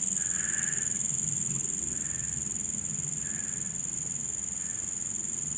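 Steady high-pitched drone of insects, unbroken throughout, with four faint short calls spaced a little over a second apart.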